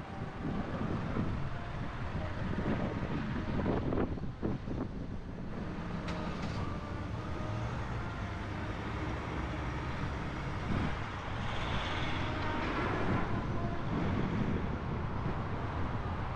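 Car driving slowly through city streets: steady engine and road noise with some wind on the microphone, and a couple of knocks about four seconds in.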